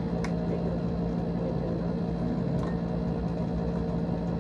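Steady low mechanical hum of a small motor, with a couple of faint clicks.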